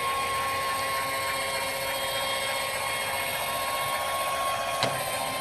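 Electric actuator of a Grasshopper 723K mower's power-fold deck whining steadily as it moves the deck, cutting off with a click near the end.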